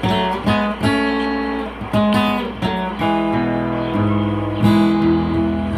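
Acoustic guitar strummed in chords, the strokes ringing on, with steadier held notes and a low bass line from about halfway through.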